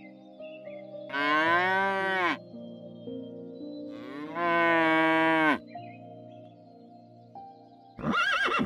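Cow mooing twice, each moo a little over a second long and dropping in pitch as it ends. Near the end a horse starts a short whinny. Soft background music with held notes underneath.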